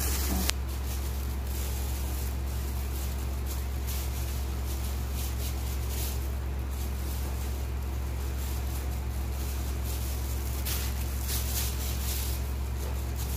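A steady low hum with a constant hiss over it, unchanging throughout; a single click about half a second in, and light handling noise near the end.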